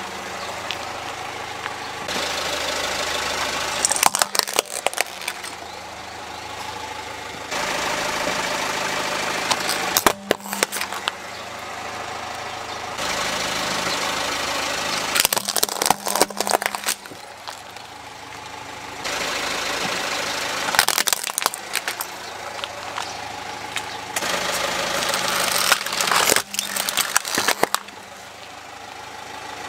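A car engine running steadily at a slow crawl while plastic toys crack and crunch under its tyre, about five times, each a short cluster of sharp snaps.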